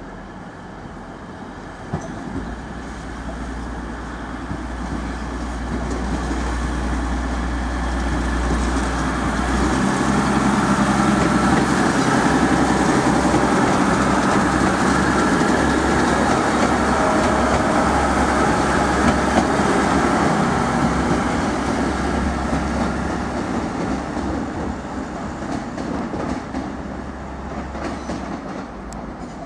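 TransPennine Express Class 185 diesel multiple unit passing, its underfloor diesel engines and wheels on the rails getting louder as it nears, loudest for several seconds as it goes by, then fading as it draws away.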